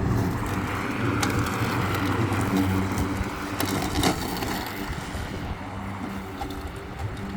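Ozito 36V (2 x 18V) brushless battery lawn mower running steadily with a low hum, with a few sharp ticks over it.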